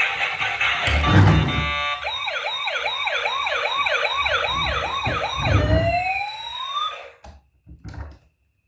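Electronic toy siren from a toy emergency vehicle, a fast warbling wail of about two to three swoops a second. It ends in one rising sweep and cuts off, followed by a few light clicks. Music and a low thump come before it in the first two seconds.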